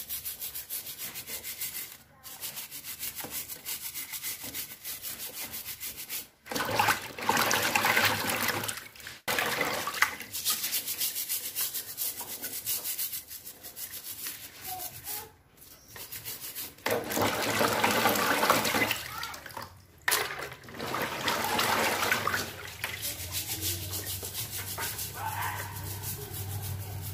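Scouring sponge scrubbing the shells of small crabs in a basin of water: rough, scratchy rubbing strokes with a little splashing, coming in uneven stretches that stop abruptly several times.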